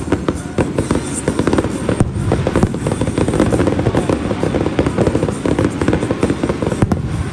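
Fireworks going off in a rapid barrage: dense crackling and popping with a few sharper bangs, over music playing in the background.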